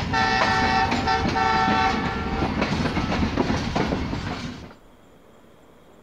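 Train horn blowing for about two seconds over the clatter of train wheels on rail joints; the clatter goes on after the horn stops and then cuts off abruptly near the end.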